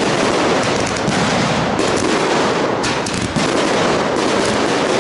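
Fireworks barrage: a dense, continuous stream of rapid overlapping bangs and crackling, with a fresh surge of shots about three and a half seconds in.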